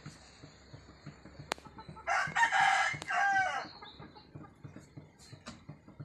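A rooster crowing once, starting about two seconds in and lasting under two seconds, with the pitch falling at the end.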